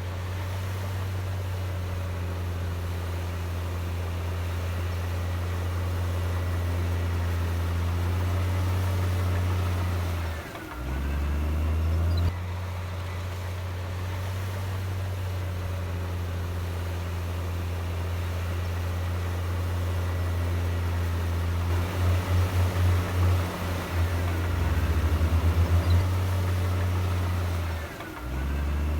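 Heavy diesel engine of earthmoving machinery running with a steady low drone. Its speed drops briefly twice, about ten seconds in and near the end, and the sound throbs for a few seconds shortly before the second drop.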